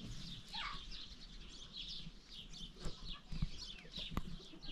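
Birds chirping: many short, high chirps, with one falling call about half a second in. A few faint knocks sound in the second half.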